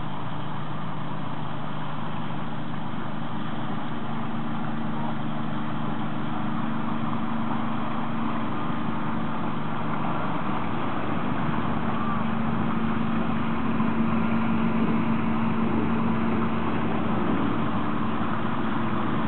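Diesel engine of the lake motor ship MS Stockhorn running as the vessel comes alongside the landing stage: a steady hum with low droning tones, growing a little louder in the second half.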